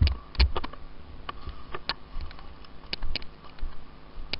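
Airsoft guns firing single shots: about eight sharp clicks at irregular intervals.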